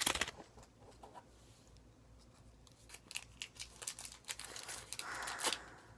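Dum Dums lollipop wrappers crinkling and tearing as they are unwrapped by hand: a flurry of small crackles that starts about three seconds in, after a quiet stretch.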